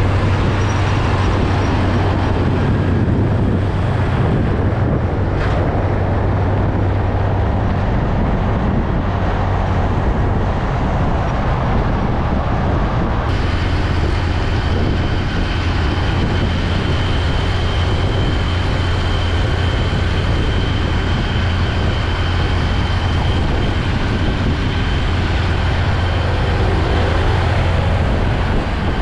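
Highway traffic, with heavy trucks and cars going by in a steady rush of tyre and engine noise over a low rumble. The sound shifts suddenly about halfway through. Near the end a diesel tractor unit hauling a loaded flatbed semi-trailer passes close.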